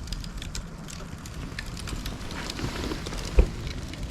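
A bundle of split dry bamboo burning as a Swedish torch, crackling with scattered small snaps and pops over a low rumble of wind on the microphone. There is one dull thump about three and a half seconds in.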